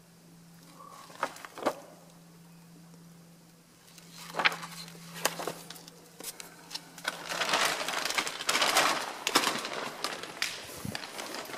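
An old paper catalogue being handled on a dusty wooden surface: a few sharp clicks and knocks, then a longer stretch of rustling and scraping about seven seconds in. A steady low hum runs underneath until then.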